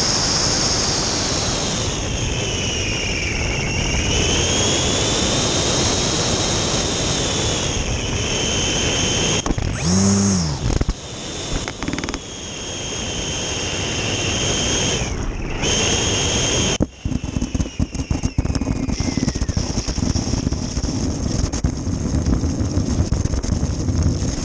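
RC plane's motor and propeller whining in flight with heavy rushing air noise; the whine rises and falls in pitch with the throttle. About two-thirds of the way through the whine dies away and the plane skids along the ice with a rattling, clattering scrape.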